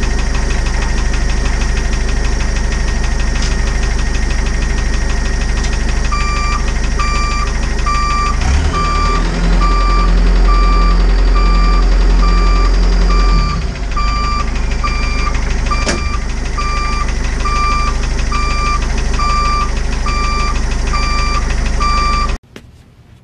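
Isuzu turbodiesel engine running, with a steady electronic warning beep about twice a second starting about six seconds in. In the middle it revs up for several seconds with a whine that rises and falls, driving the newly rebuilt JATCO JR403E automatic transmission, which is not moving the vehicle: its pan has been sucked dry of fluid. The sound cuts off abruptly near the end.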